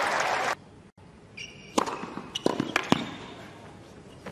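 Crowd applause that cuts off half a second in. Then a quiet stadium with a run of sharp knocks, a tennis ball being bounced on the hard court before a serve, and a short high tone partway through.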